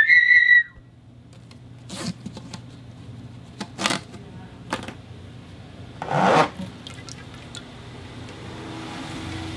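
A whistle blown through a conduit stops about half a second in, followed by scattered scrapes, rubs and light knocks from handling, the loudest about six seconds in. A soft hiss builds near the end.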